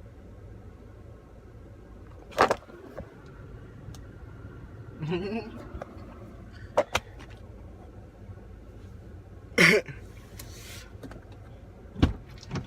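Steady low rumble inside a waiting car's cabin. Over it come a few sharp clicks and knocks, two brief voice sounds, and a heavy thump near the end.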